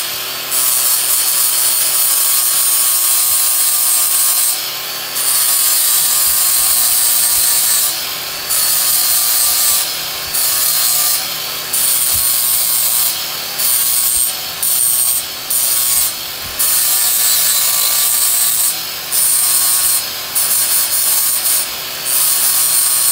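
Wood being sanded by hand: a steady rasping rub of abrasive on wood, broken by short pauses every second or two.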